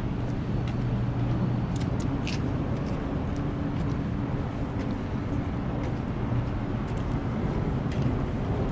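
Steady city traffic noise with the low hum of an engine underneath, strongest in the first second or so, and a few light ticks.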